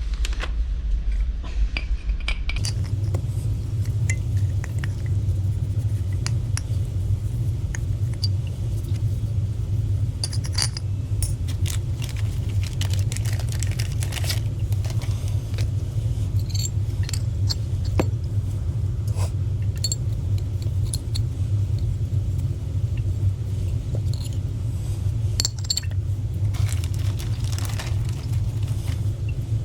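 A steady low motor hum sets in about two and a half seconds in. Over it come scattered light metallic clinks and clicks of valve parts being handled during the relief valve rebuild.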